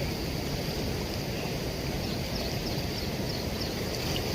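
Steady rushing noise of rainwater overflowing from a pond and running off across the fields, with a few faint high chirps.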